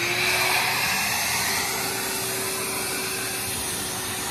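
Electric air blower running at full speed, a steady motor whine over a loud rush of air, as it blows water out of a swimming pool's main drain line to winterize it.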